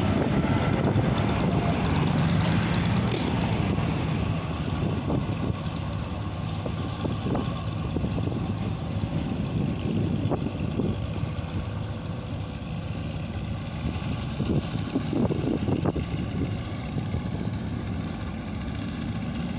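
Steady rumble of road traffic, a little louder in the first few seconds.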